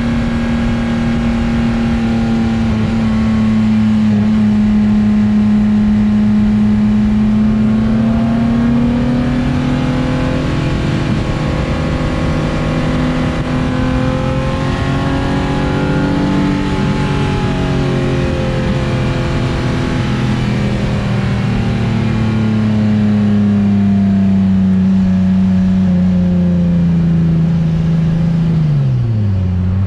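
VQ35DE V6 engine of a swapped Datsun S30 Z car pulling at steady part throttle. Its note climbs slowly to a peak about halfway through, eases off again, and drops sharply and comes back near the end.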